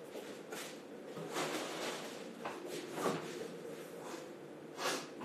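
Refrigerator door opened and things moved about inside it: a few soft knocks and rattles, the sharpest near the end.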